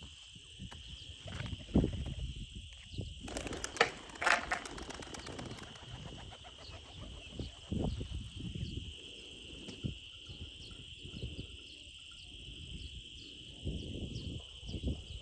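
Steady high-pitched chirring of crickets, with irregular low rumbles of wind on the microphone and a brief rustling flurry about four seconds in.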